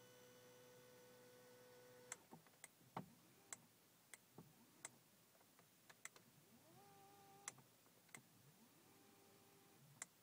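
Audi S8's electric steering-column adjustment motor whining faintly as the wheel moves into position. A whine that has just risen in pitch holds steady and stops about two seconds in, then comes back twice in shorter runs near the end, each rising and then holding. Scattered sharp clicks sound in between.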